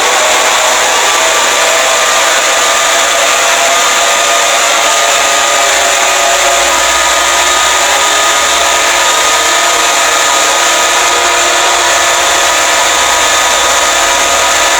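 Emergency Alert System alarm audio: several layered electronic tones that slowly drift in pitch, buried in a loud, constant hiss.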